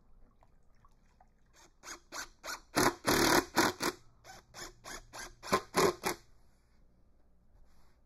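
Damp rag rubbing back and forth over the glued box-joint corners of a wooden beehive box, wiping off excess glue. It is a quick run of scrubbing strokes, about three a second, with one longer stroke about three seconds in.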